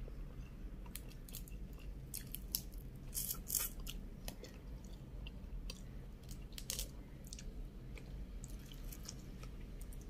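Close-up sounds of cooked shrimp being peeled by hand and eaten: scattered short crackles and clicks as the shell is pulled off, over a low steady hum.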